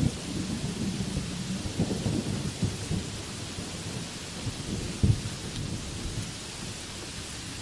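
Heavy rain pouring onto banana leaves and trees: a steady hiss under a low, irregular rumble that eases off over the first few seconds. One sharp low thump comes about five seconds in.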